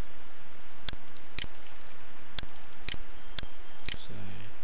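Computer mouse clicking: six sharp clicks, spaced about half a second apart, over a steady hiss.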